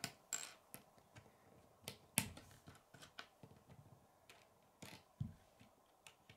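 K'nex plastic rods and connectors clicking and tapping as they are snapped together and handled on a wooden tabletop: faint, scattered clicks, the loudest about two seconds in.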